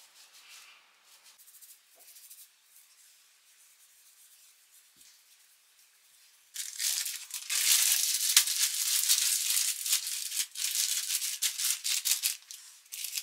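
Close, rapid, dry rustling and rubbing by hands at the microphone. It is faint at first and much louder from about six and a half seconds in.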